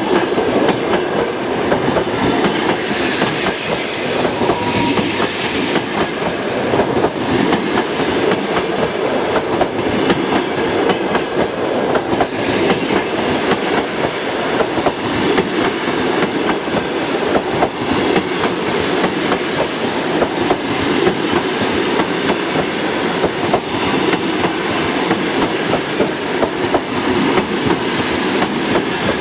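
Passenger train coaches rolling past on the track, their wheels clattering steadily over the rails.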